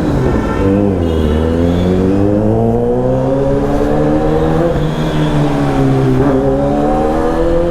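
Kawasaki Z900's inline-four engine pulling under acceleration. Its pitch dips about a second in, climbs steadily for several seconds, dips again around five seconds in, then climbs once more.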